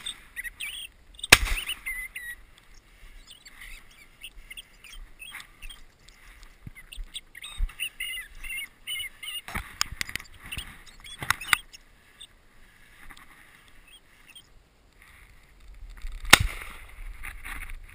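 Two 12-gauge over-and-under shotgun shots, one about a second in and one near the end, with small birds chirping between them. A cluster of fainter sharp cracks comes in the middle.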